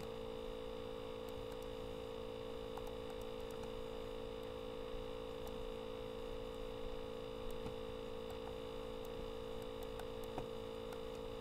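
Steady electrical hum with several fixed tones, the strongest a mid-pitched drone, and a few faint clicks scattered through it.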